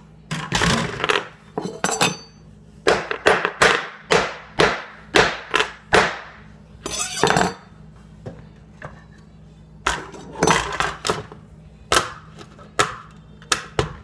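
Sharp knocks, clicks and clatter of a computer motherboard and its parts being handled and pressed against a hard countertop. The knocks come in quick irregular runs, with a pause of about two seconds past the middle.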